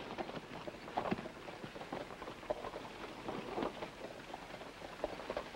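Faint rustling with scattered small clicks and ticks: close handling of a small object, likely a revolver.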